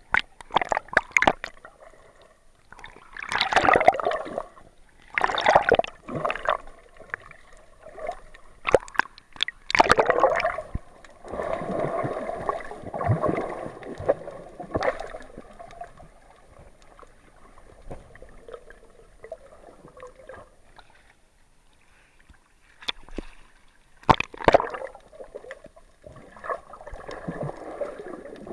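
Water gurgling and sloshing around an action camera held in and just under the sea. It comes in irregular surges, with sharp clicks and knocks, and goes quieter for a few seconds past the middle.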